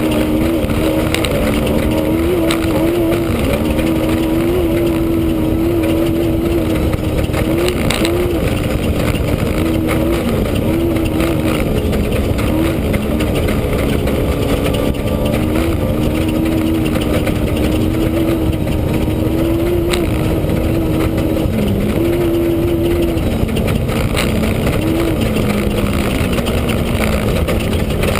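Off-road race car's engine heard from inside the car, running at high, fairly steady revs with brief dips and rises in pitch as the throttle is eased and reapplied, over a loud rushing noise.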